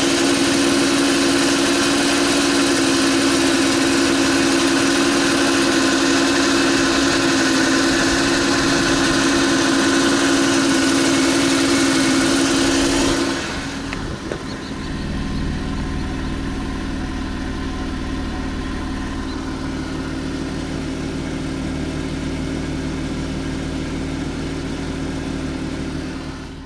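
Audi A6 Allroad's 3.2 FSI V6 (AUK) petrol engine running steadily, heard from under the car, with its original timing chains at 295,000 km. About halfway through the sound drops in level and turns deeper.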